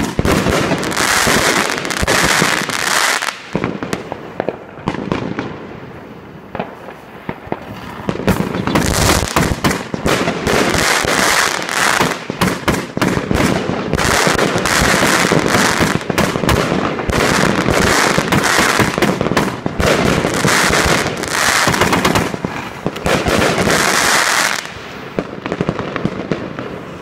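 150-shot Pangu Fireworks 'Garden Party 1' consumer cake firing shot after shot: launch thumps, bursts and dense crackling. It eases off about four to eight seconds in, builds again to a loud run of shots, and tails off near the end as the cake finishes.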